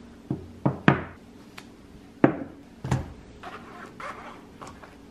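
Things being set down on a wooden tabletop, about five sharp knocks in the first three seconds as a phone and a zippered pencil case are put in place. Softer clicks and rustling follow as the pencil case is handled.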